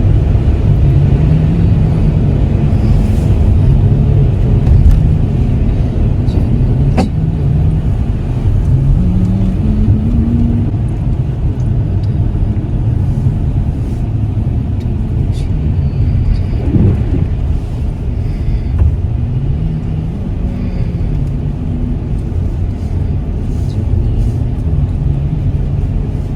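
Road noise inside a moving car, with a low engine hum that rises and falls in pitch as the car drives.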